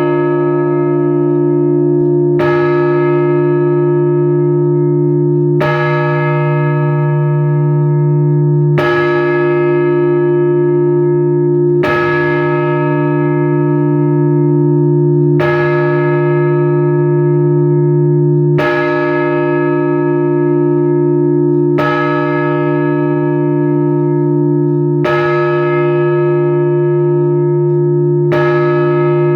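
A large church bell tolled slowly, nine strokes about three seconds apart, each ringing on into the next. This is Orthodox funeral tolling for the burial service of the dead.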